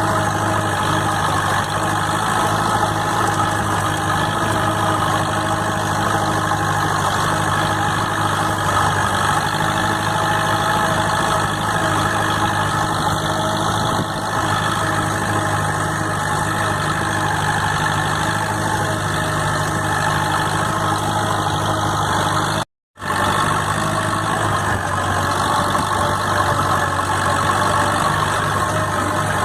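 Farm tractor engine running steadily at constant speed, with a split-second gap about three quarters of the way through.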